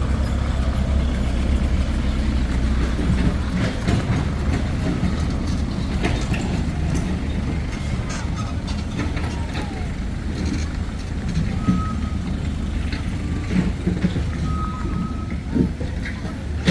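Heavy diesel machinery running steadily with a deep rumble, with scattered metallic knocks and clanks and two brief high tones in the second half.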